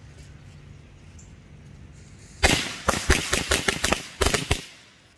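A string of American Thunder firecrackers going off about halfway in: a rapid, uneven run of sharp bangs lasting about two seconds, then stopping.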